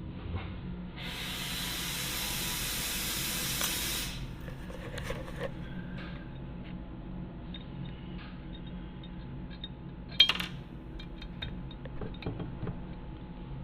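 A hiss of spray lasting about three seconds, starting a second in. Later come light clicks and one sharp clink about ten seconds in, from handling metal parts while the spokes are laced.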